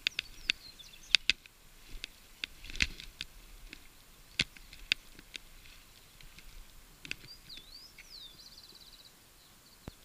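Irregular sharp clicks and knocks from the bicycle as it is moved over the uneven, grassy lakeshore, mostly in the first half. In the second half, birds give high sweeping whistles and a short rapid trill.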